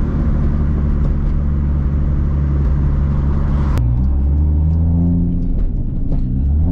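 Straight-piped, big-turbo 2JZ inline-six of a MKIV Toyota Supra cruising at low revs, under about 2000 rpm, with a steady low drone heard from the cabin. A little under four seconds in the sound changes abruptly, and the exhaust note then rises and falls twice.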